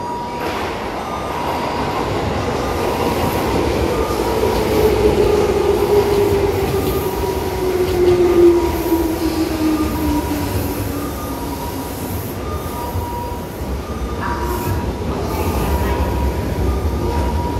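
Tobu Tojo Line electric commuter train pulling into the platform and slowing: a steady rumble of wheels on rail, with a tone that falls steadily in pitch from about four seconds in as the train brakes.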